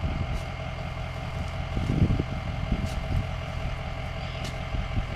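Pickup truck engine running steadily at low revs, with a louder low rumble about two seconds in and wind noise on the microphone.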